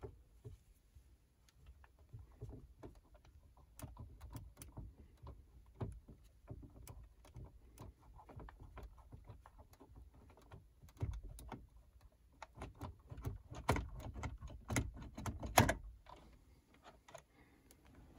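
Handling noise from a portable car navigation unit and its CD-slot dashboard mount: irregular plastic clicks, knocks and rubbing as the screen is gripped and tilted, with a run of louder knocks about three quarters of the way through.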